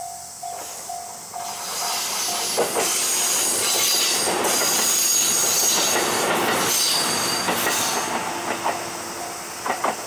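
Level-crossing warning bell dinging about three times a second while a train passes over the crossing. The train's rumble builds and drowns the bell, with wheels clacking over rail joints and a high-pitched wheel squeal. It fades near the end, when the dinging of the bell comes back.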